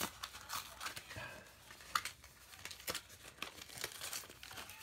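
Irregular crinkling and rustling of plastic and foil trading-card packaging being handled, with small crackles and clicks.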